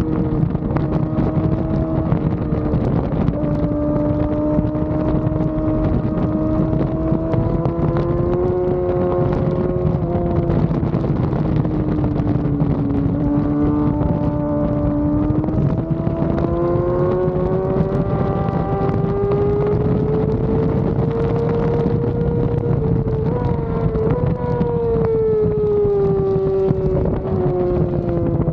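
Yamaha R6 inline-four engine running hard at race pace, its pitch dropping and climbing with throttle and gear changes, with wind buffeting the onboard microphone.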